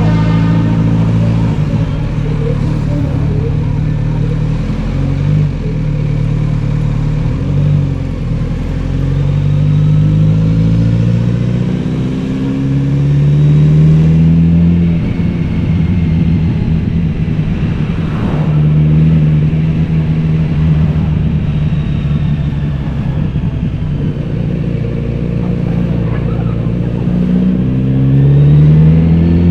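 Kawasaki Z900RS inline-four engine with a BEET aftermarket exhaust, ridden under way: the revs climb and fall back again and again as it accelerates and eases off.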